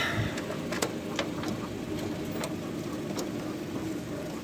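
Briggs & Stratton engine of a riding lawn mower idling steadily, with a few sharp clicks over it.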